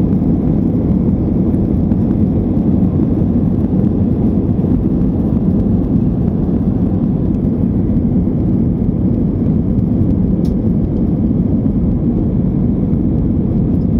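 Jet airliner cabin noise during the climb after takeoff: a steady, low-pitched rush of engines and airflow with no change in pitch.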